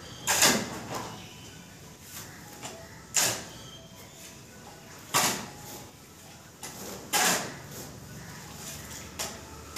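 Steel shovel scraping and turning a gritty sand-and-cement mortar mix on a concrete floor: four loud scrapes about two seconds apart, with smaller scuffs between.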